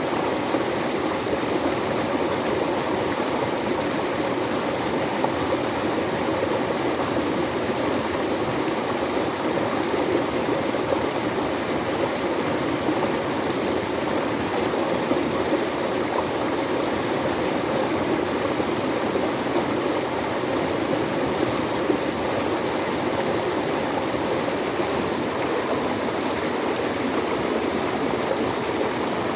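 Flowing water running steadily, an even rushing sound with no breaks or changes.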